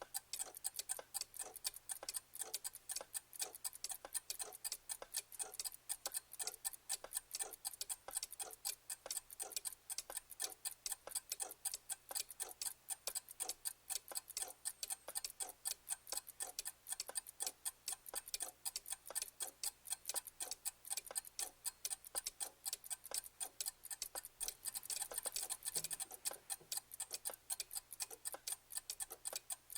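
Clock ticking: a steady stream of crisp ticks, several a second, over a faint low hum.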